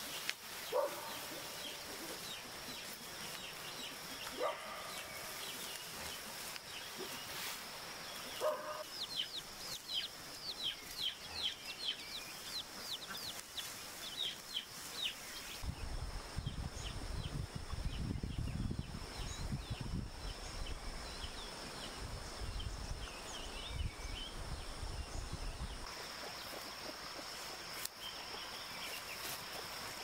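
Chickens calling: a few short clucks in the first seconds, then a run of rapid high chirps over a steady high-pitched hum. A low rumble comes in about halfway and stops again some ten seconds later.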